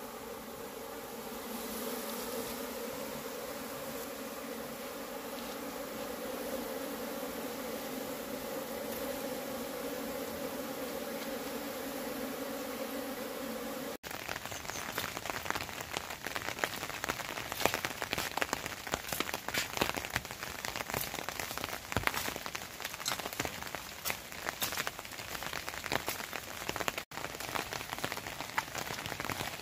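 A steady, even buzzing drone, then after a sudden cut about halfway through, rain pattering densely on a surface.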